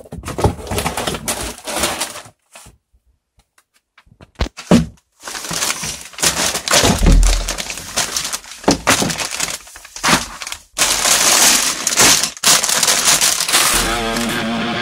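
Plastic bags full of LEGO Technic parts crinkling and rustling as they are handled and pulled out of the box, with a short quiet pause a few seconds in. Music comes in at the very end.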